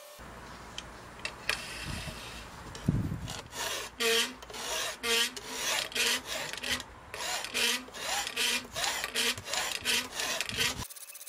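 Hand filing on a thin steel spatula blank held in a vise: rhythmic back-and-forth rasping strokes, about two a second, starting about three seconds in. Each stroke sets the sheet squealing briefly. A single knock comes just before the strokes begin.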